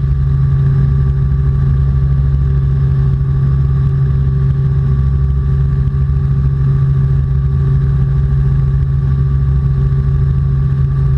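Robinson R44 Clipper II helicopter in cruise, heard inside the cabin: a steady engine-and-rotor drone with a constant low hum and fainter higher steady tones, unchanging throughout.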